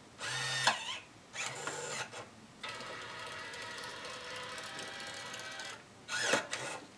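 Brother PT-E550W label printer's motor whirring as it feeds and prints a 24 mm tape label. There are two short spells of whir, then a steady run of about three seconds, ending in a short louder burst.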